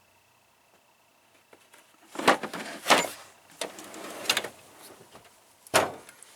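Metal tool chest drawer being slid and shut, with a sliding rattle and several sharp knocks and clatters starting about two seconds in.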